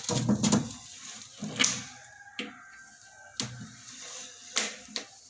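Irregular clicks and knocks of plastic toilet-tank fittings being handled and fitted together while the connection pipe is tightened. The loudest cluster comes right at the start, followed by about five single sharp clicks spaced a second or so apart.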